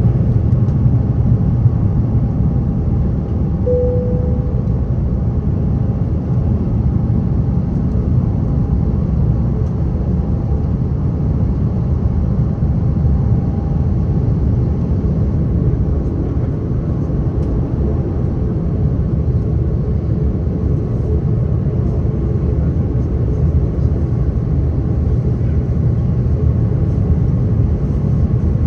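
Steady roar of an Airbus A330-900neo's Rolls-Royce Trent 7000 engines and airflow heard inside the passenger cabin during the climb after takeoff, with faint steady tones over a deep rumble. A short, fading tone sounds about four seconds in.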